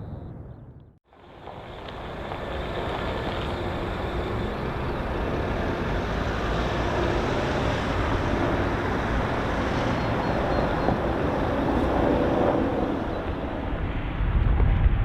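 Jet airliner engine noise: after a brief dip to silence about a second in, a steady loud rush of jet noise that slowly grows, with a deep rumble getting stronger near the end.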